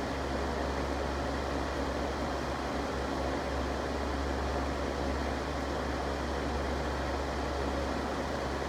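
Electric fan running steadily: an even rush of air over a low hum, with no change.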